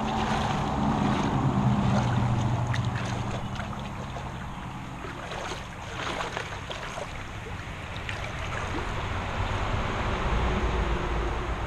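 Shallow creek water sloshing and swishing as someone wades through it, with wind rumbling on the microphone, strongest in the first few seconds.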